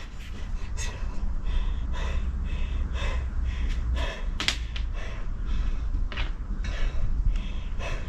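A woman breathing hard and panting as she catches her breath after skipping rope, over a steady low rumble, with a few sharp taps.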